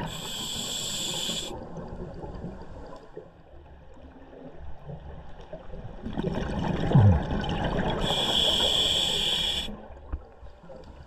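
A scuba diver breathing through a regulator underwater. There is a hissing breath near the start, a gurgling rush of exhaled bubbles from about six seconds in, and a second hissing breath about eight seconds in.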